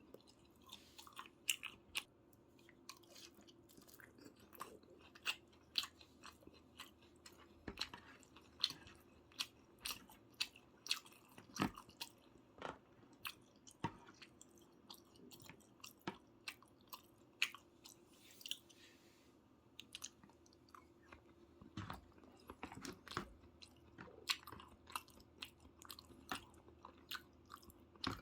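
A person chewing and eating soy-braised chicken (jjimdak) close to the microphone: many short, irregular mouth clicks and bites.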